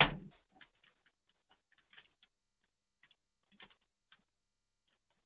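Computer keyboard keys clicking as a web address is typed: a louder knock right at the start, then faint, scattered single keystrokes.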